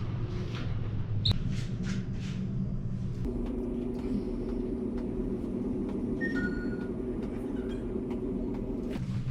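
A steady low rumble with a hum, the hum stepping up in pitch about three seconds in; two short faint beeps sound near the middle.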